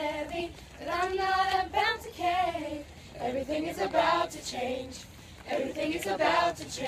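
A group of girls singing together, in short held phrases with brief pauses between them.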